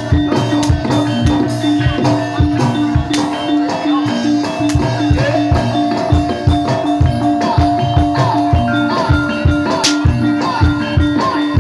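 Live Javanese gamelan music for a jathilan hobby-horse dance: a steady beat of drum strokes, about two to three a second, with sharp metallic clicks and a ringing tone held underneath.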